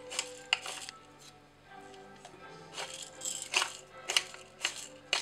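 Hand-held pepper grinder being twisted over a pot, giving irregular grinding clicks and rattles. The grinder is broken, its plastic part has come off, so little or no pepper comes out. Faint music runs underneath.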